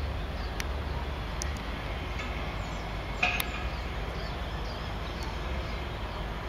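Outdoor ambience of a steady low traffic rumble with faint small-bird chirps scattered through, and one short, sharper chirp a little over three seconds in.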